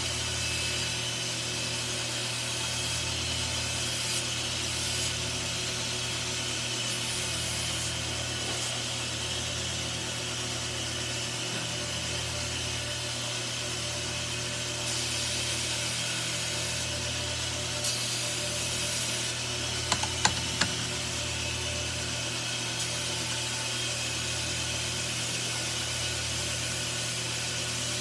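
Sandpaper rubbing back and forth on a steel knife blade by hand, in slow repeated strokes over a steady low hum, with a few sharp clicks about twenty seconds in.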